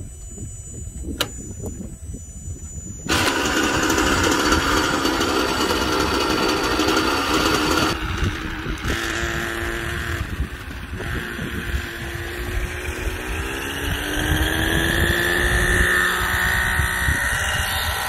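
O.S. .55 HZ-R two-stroke glow engine of a nitro RC helicopter, fitted with a tuned pipe, running loudly. It comes in suddenly about three seconds in, and its pitch climbs steadily through the second half as the rotor spools up.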